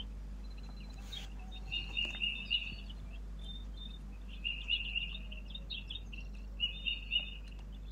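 A bird chirping in three short runs of quick, high, repeated notes, about two, four and a half, and six and a half seconds in.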